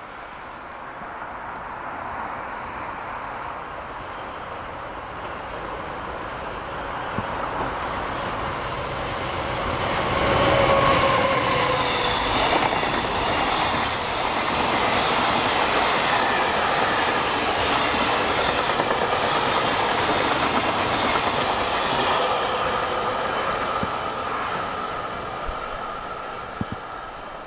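EF200 electric locomotive hauling a long container freight train past. The sound builds as it approaches and is loudest about ten seconds in as the locomotive goes by, with a brief steady tone. Then comes the steady noise of the container wagons rolling past, slowly fading near the end.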